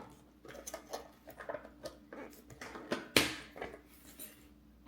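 Spoon stirring Greek yogurt into a protein shake in a container: irregular soft scrapes and clicks against the container, with one sharper knock a little past three seconds in.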